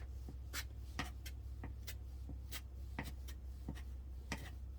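Short scratchy strokes of an applicator spreading sealer over a wooden floor, about eight strokes at uneven spacing, over a steady low hum.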